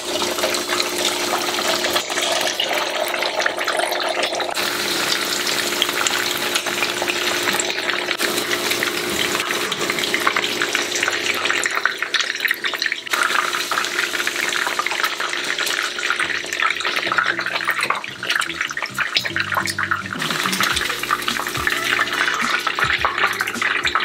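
Egg whites frying in a saucepan of hot oil: a steady, dense sizzle with fine crackling throughout.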